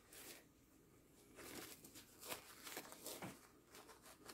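Faint, scattered rustling and crinkling of a disposable diaper as it is handled and fastened.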